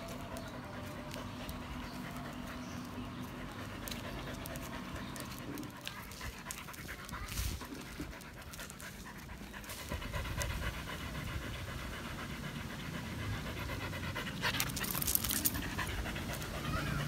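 Siberian husky panting while walking on a leash, tired out from its walk.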